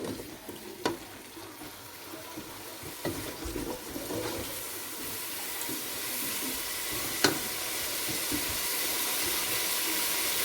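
Boiled white chickpeas frying in an oily spice masala in a pot, with a steady sizzling hiss that builds about halfway through. A spoon knocks against the pot a few times while stirring, loudest about seven seconds in.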